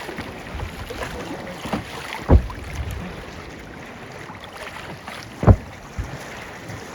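Kayak paddling: a low thud about every three seconds from the paddle strokes, two in all, over splashing water and wind on the microphone.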